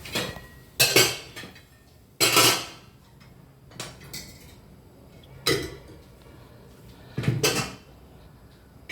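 Pots, pans and spoons being handled: a series of separate clanks and knocks of kitchenware, about six in all, the loudest about a second in, at about two and a half seconds, and again around five and a half and seven and a half seconds.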